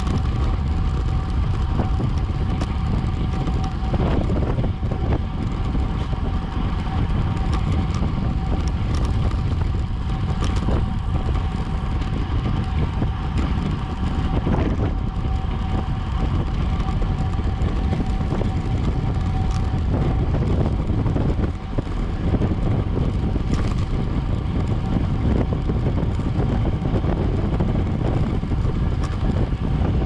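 Wind rushing over the microphone of a racing bike's action camera at race speed, with road and tyre noise underneath. A thin steady tone runs through it and stops about two-thirds of the way in.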